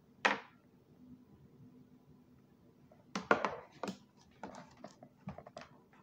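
Hard plastic and metal clicks and knocks from handling a laptop and its SSD drive caddy: one sharp click just after the start, a clatter of knocks about three seconds in, then scattered lighter clicks.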